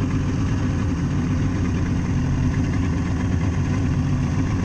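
Outboard motor running steadily at low trolling speed, an even low engine hum.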